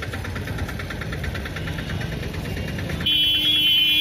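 A vehicle engine runs with a rapid, even rattle amid street noise. About three seconds in, a vehicle horn honks loudly for about a second.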